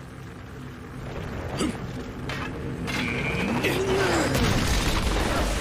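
Anime action-scene sound effects and score, swelling steadily in loudness, with scattered knocks and a deep booming rumble setting in near the end.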